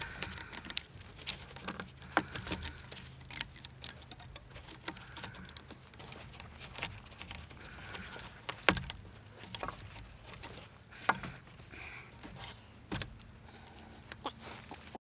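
Handling noise of twine being wrapped and knotted around a stake and log wall: irregular small clicks, rustles and knocks from the plastic spool, gloved hands and clothing against the bark, with one sharper knock about nine seconds in.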